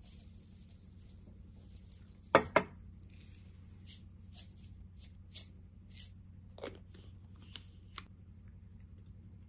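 Seasoning shaker over a bowl of rice: two sharp clicks, then a string of light taps and rattles about every half second as it is shaken, over a steady low hum.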